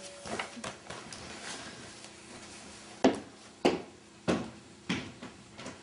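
Four evenly spaced footsteps on a hard floor, about a second and a half to two steps a second, starting about three seconds in after a few faint clicks.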